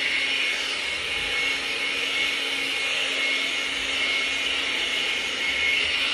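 Hair dryer running steadily: an even rush of air with a faint constant motor tone.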